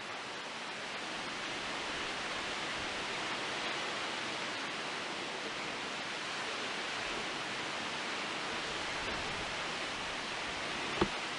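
Strong, gusty wind blowing through leafy trees, a steady rush of rustling leaves that swells slightly about a second in. A single sharp click comes near the end.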